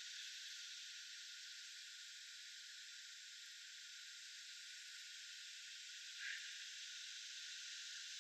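Faint, steady hiss of outdoor background ambience, with one short, faint chirp about six seconds in.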